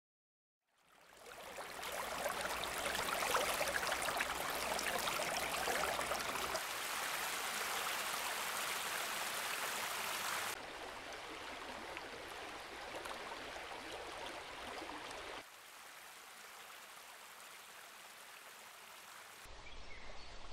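Mountain stream rushing over rocks, a steady watery hiss. It fades in after about a second and drops in level twice, at about ten and fifteen seconds in, growing fainter.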